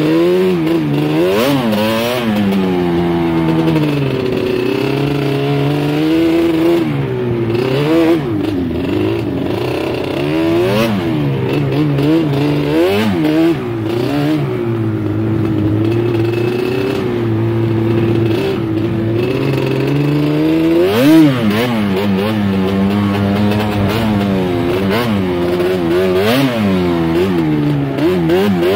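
Quad ATV engine heard up close from the rider's seat, revving up and down again and again as the throttle is worked on a sandy trail, with the machine rattling. The hardest rev comes about three-quarters of the way through.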